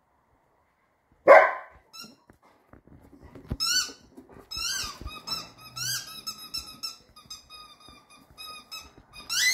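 A dog barks once, loudly, about a second in, then a squeaky toy chicken squeaks over and over, about two short high squeaks a second, as the dog bites down on it.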